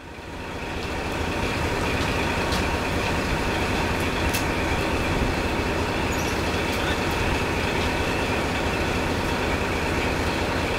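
KiHa 58-series diesel railcars idling at a standstill: a steady diesel rumble and hum, with a couple of faint clicks.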